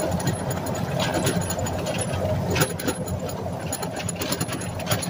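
An engine running steadily with a low rumble, overlaid with scattered rattling clicks.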